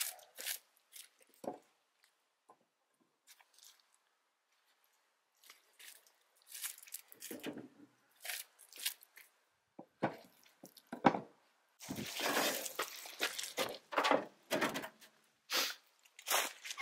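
Concrete blocks being lifted and set on a dry-stacked block wall: scattered knocks of block against block, with a denser stretch of grating noise about twelve seconds in.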